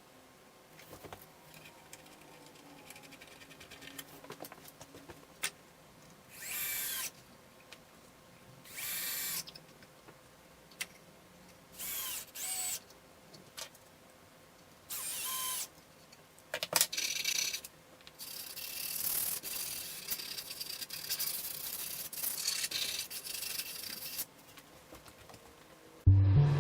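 Rubbing strokes: several separate strokes of about a second each, then a longer run of continuous, uneven rubbing near the end.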